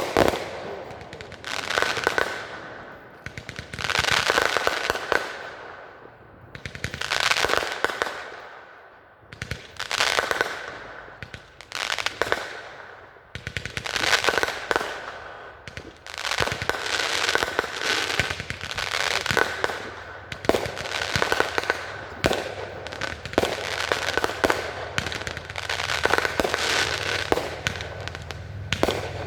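Fireworks display in full swing: a steady run of aerial bursts, one about every two seconds, each a sharp bang followed by crackling that fades before the next.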